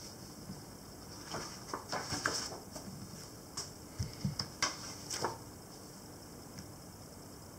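Sheets of paper rustling and sliding across a wooden tabletop as they are sorted and laid down, in a string of short rustles, light clicks and a couple of soft knocks over the first five seconds or so.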